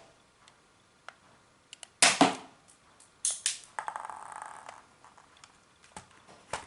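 Sharp plastic clacks and knocks from a toy Desert Eagle spring airsoft pistol: two loud ones about two seconds in, two more a second later followed by a brief rattle, and a single click near the end.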